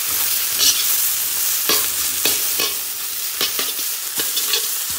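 Egg, peas, carrots and onion sizzling in a hot wok, with a steady hiss. A spatula scrapes and knocks against the pan every half second or so, breaking up the scrambled egg.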